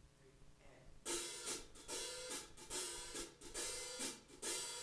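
Small jazz band starts the instrumental intro about a second in: cymbal strokes about twice a second over sustained chords.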